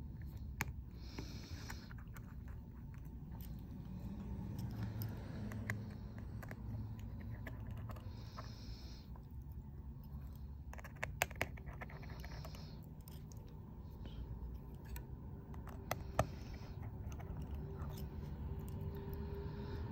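Small scattered clicks and taps of repair tools on an opened iPhone 12 Pro Max, over a steady low background rumble, with a few sharper clicks past the middle.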